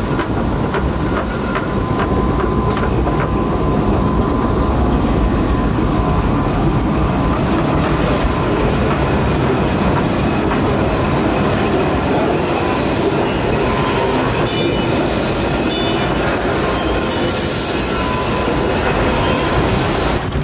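Log flume ride running with the riders aboard: a steady, loud mechanical rattling and clacking with rushing noise underneath.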